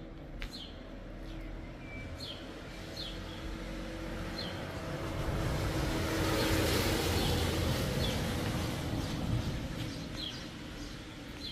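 A car driving past, growing louder to a peak about halfway through and then fading away. Short, falling bird chirps repeat every second or so.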